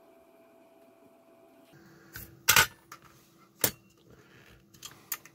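Sharp clacks and clicks of a metal spring-loaded circuit-board holder as a small PCB is worked out of its jaws: about two seconds of quiet, then a handful of separate knocks, the loudest about two and a half seconds in.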